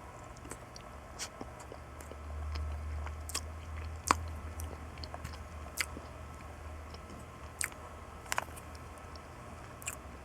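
A person chewing a bite of hard-boiled egg close to the microphone: scattered soft mouth clicks and smacks, the sharpest about four seconds in.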